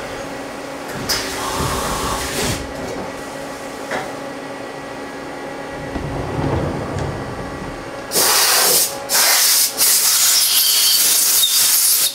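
Mazak CNC lathe running with coolant spraying inside the enclosure, a steady hissing machine noise. About eight seconds in come loud blasts of hissing compressed air, three of them with two short breaks, aimed at the part in the chuck.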